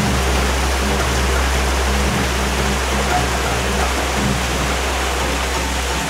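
Steady rush of waterfall water, with soft background music of held low notes underneath.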